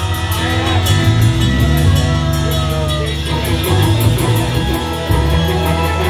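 Rock band playing live through a club PA, an instrumental stretch: electric guitars with bent notes over bass and drums, a cymbal ticking steadily in time.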